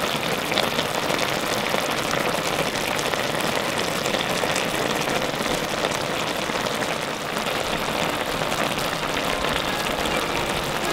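Sukiyaki sauce and ingredients simmering in a cast-iron pot: a steady, dense sizzle and bubble.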